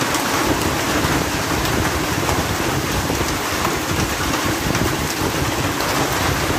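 Hailstorm: hail and heavy rain pelting down in a dense, steady hiss, with scattered sharp ticks of hailstones striking.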